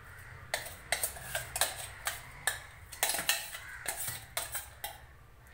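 Steel spoon scraping and clinking against a stainless-steel mixer-grinder jar as a coarse ground paste is scraped out into a pot: a quick, irregular run of about fifteen clinks that stops about five seconds in.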